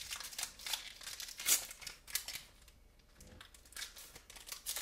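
Foil wrapper of a Pokémon TCG booster pack crinkling and rustling as it is handled, busiest in the first half and loudest about a second and a half in, then thinning to a few sharper crinkles near the end.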